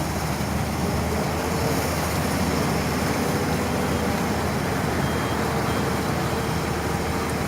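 Heavy diesel truck or paving machinery engine running steadily, with a faint intermittent high beep in the second half.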